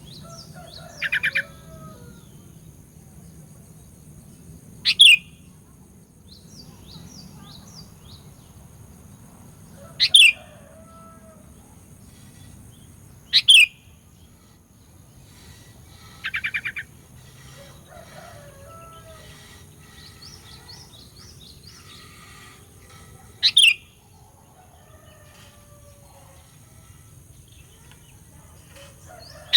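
Sooty-headed bulbul (kutilang) calling: loud, sharp falling calls every few seconds, two buzzy trills among them, and softer chirps in between, over a steady low hum.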